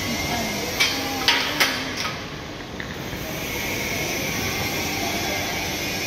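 Steady background hiss and hum of a busy station concourse, with four sharp knocks in quick succession about a second in.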